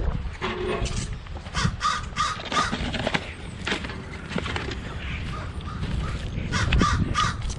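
Crows cawing in quick runs of short, repeated calls, over a steady low rumble.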